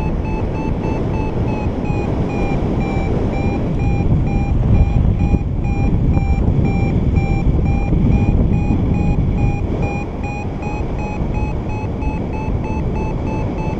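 Paragliding variometer sounding its climb tone, a rapid steady run of short beeps that signals the glider is rising in a thermal; the pitch sags a little midway and rises again near the end. Wind noise on the microphone runs loud underneath.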